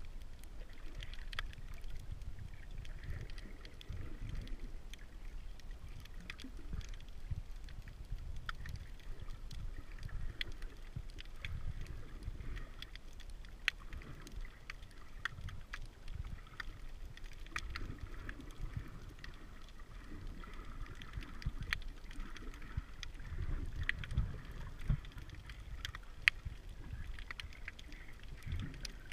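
Underwater sound picked up by a submerged camera: a low rumble of moving water with scattered sharp clicks and crackles at irregular moments.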